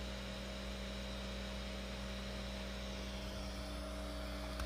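Steady electrical hum with several steady tones from an idle Creality CR-6 SE 3D printer whose print has finished, with no motor movement.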